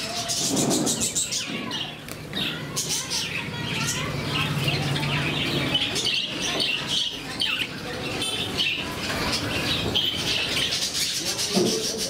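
A flock of budgerigars chattering and chirping continuously in an aviary, with wing flutters as birds fly about.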